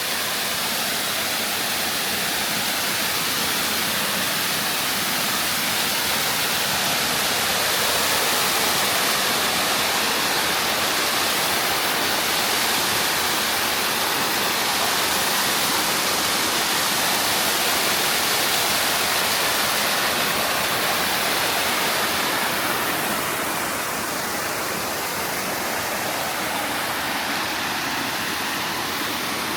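Mountain stream rushing over a bare rock bed in a chain of small waterfalls: a steady, even rush of water, slightly softer in the last few seconds.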